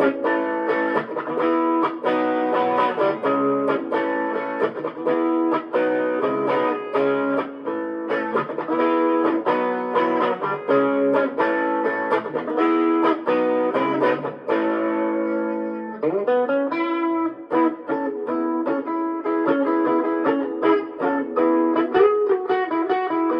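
Electric guitar played through a Fender Champion 20 amp on its overdriven Tweed Orange setting, with chorus and added reverb: continuous strummed chords and single notes, with a short pause and a string bend about 16 seconds in.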